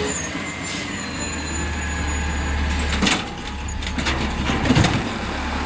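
Garbage truck engine running with a steady low rumble, with a short clank about three seconds in and another near the end.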